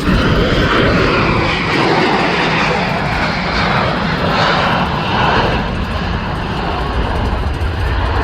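Airbus A330-300's Rolls-Royce Trent 700 turbofans at takeoff thrust: loud, steady jet noise that eases in its higher part after about six seconds, leaving a low rumble as the airliner climbs away.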